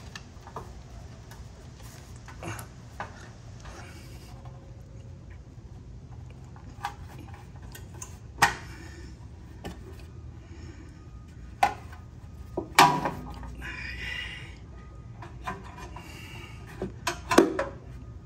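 Scattered clicks, clinks and scrapes of metal pliers and the steel exhaust against a rubber exhaust hanger as the hanger is pried off its mounting rod. The loudest is a sharp metallic knock about 13 s in, followed by a short scrape. A cluster of clinks comes near the end.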